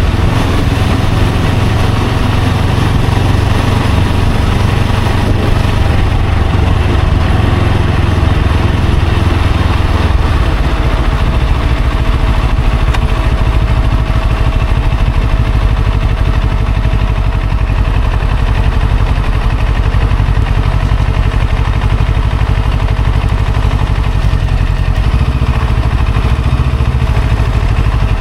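A motor vehicle's engine and road rumble running steadily while riding in traffic, heavy in the low end with a faint steady whine above it.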